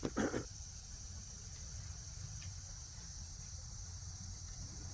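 Steady high-pitched insect chirring, typical of crickets, with a brief louder noise just after the start.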